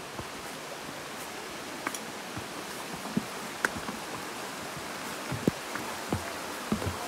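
Steady rush of a shallow stream running over rocks, with irregular footsteps knocking on the wooden planks of a footbridge, more frequent in the second half.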